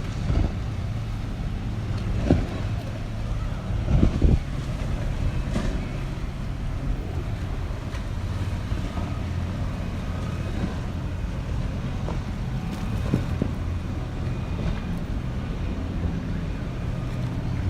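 A steady low engine drone with wind buffeting the microphone, broken by a few short knocks, the strongest a double knock about four seconds in.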